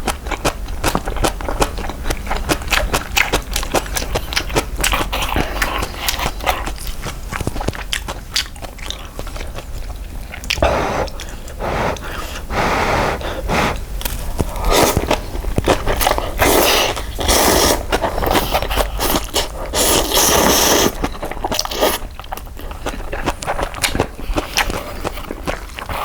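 Close-miked eating of spicy beef-broth instant cup noodles (yukgaejang sabalmyeon): chewing with many quick wet clicks and smacks, with several slurps of about a second each from about ten seconds in.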